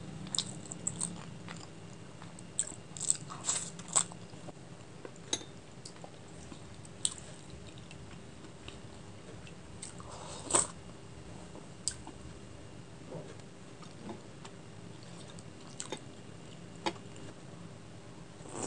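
Close-miked chewing of a chicken momo, with sharp wet mouth clicks and smacks that come thickest in the first few seconds. About ten seconds in there is a brief slurp from a spoonful of soup.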